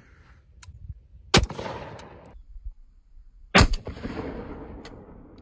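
Two shots from a .458 SOCOM AR-style rifle, about two seconds apart, each trailing off in a long echo.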